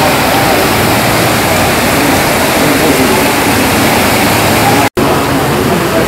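River water rushing over boulders in shallow rapids: a loud, steady rush of noise, cut off for an instant about five seconds in.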